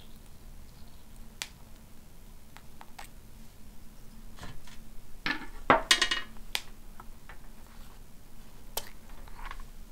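Light clicks and scrapes of a small metal spoon working vegan eggs out of a silicone egg mold, with a louder run of clinks and scraping about halfway through.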